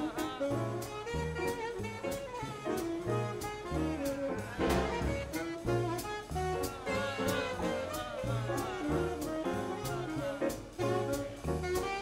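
Swing big band playing live: a saxophone solo over piano, bass and drums, with the cymbals keeping a steady swing beat.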